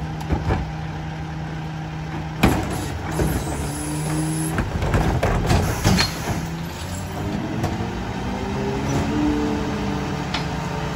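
Freightliner Econic McNeilus rear-loader garbage truck idling, a loud bang about two and a half seconds in and metal clanking over the next few seconds, then its engine speeding up with a rising pitch.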